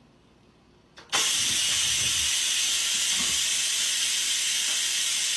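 A steady, loud hiss that starts suddenly about a second in and cuts off abruptly at the end.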